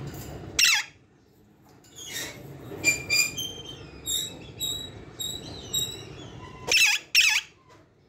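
Alexandrine parakeets calling: three loud, harsh screeches that fall in pitch, one about half a second in and two in quick succession near the end, with short high chirps and whistled notes in between.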